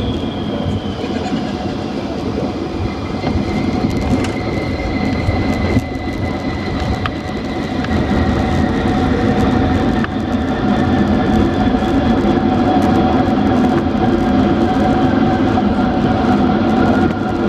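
Jet airliner cabin noise on the runway after landing: a steady rumble of the wheels and airframe, with the engine whine slowly falling in pitch. The noise grows louder about halfway through.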